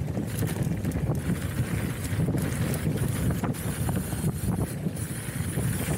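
Heavy wind rumble on the microphone of a camera riding on a hardtail mountain bike going fast, with scattered clicks and rattles from the bike running over rough ground.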